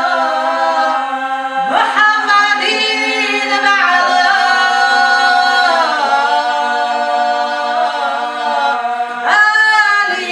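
Unaccompanied voices singing a slow melody that rises and falls over a steady held drone note, with no instruments.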